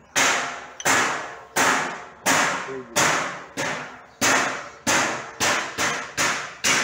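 Hammer blows on metal, about a dozen sharp strikes at a steady pace, each ringing briefly and coming quicker toward the end.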